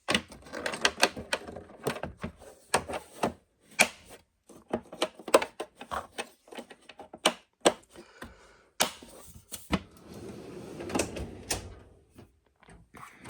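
Hand tools and sockets being handled in a toolbox drawer: irregular clicks, clinks and knocks, with a longer scraping rustle about nine to twelve seconds in.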